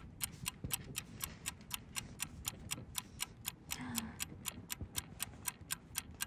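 Fast, even ticking like a clock or timer, about four ticks a second, marking the wait while a letter is silently counted through.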